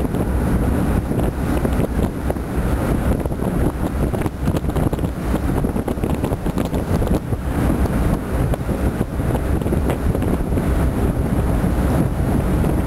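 Steady wind buffeting the microphone aboard a boat under way, a dense low rumble with the boat's own running and the water beneath it.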